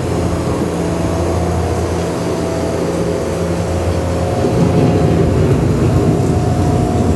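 A loud, steady mechanical drone with a few held tones, like a vehicle or machine running.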